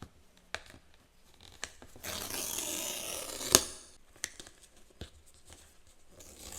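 The MacBook box's packaging being torn open. A few light clicks come first, then a tearing sound of about a second and a half that ends in a sharp snap. More small taps follow, and a second tear starts near the end.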